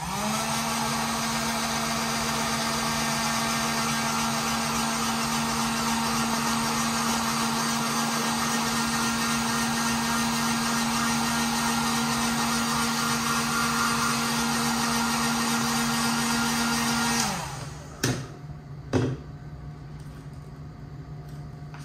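Handheld heat gun running steadily, its fan motor humming and blowing hot air to shrink and conform vinyl wrap over a curved trim piece. It spins up at the start and winds down about 17 seconds in, followed by two light knocks.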